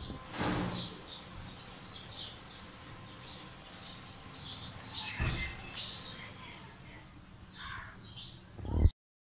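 Small birds chirping in short, irregular calls over a steady low hum, with a couple of brief rustles and a louder bump just before the sound cuts off near the end.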